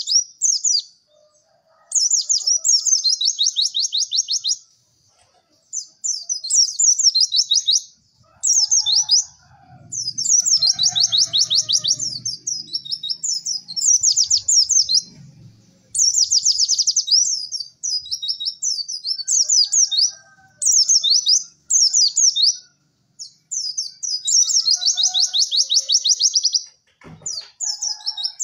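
White-eye (pleci) singing in full song: high-pitched phrases of rapid, chattering repeated notes, each lasting one to three seconds and separated by short pauses. This is a masteran song-tutor recording.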